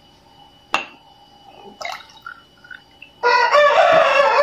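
Two sharp knocks of glassware being handled, then about three seconds in a rooster crows loudly, one long call lasting over a second, as water is poured into a glass.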